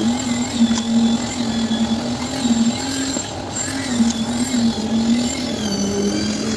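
Engine of a concrete mixer running steadily, its pitch wavering a little as the load changes.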